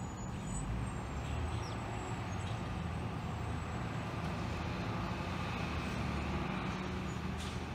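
Box truck's engine idling: a steady low rumble.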